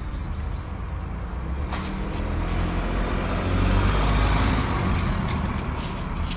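A road vehicle passing close by: a low rumble that builds to a peak about four seconds in, then fades.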